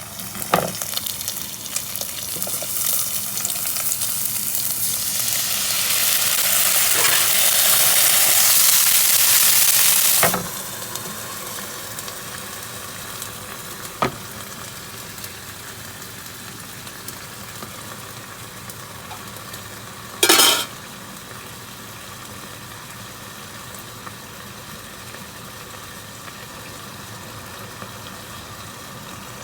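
Whale bacon sizzling in a frying pan. The sizzle grows louder over the first ten seconds, then drops sharply to a quieter steady fry. There are a few light clicks, and a short loud noise comes about twenty seconds in.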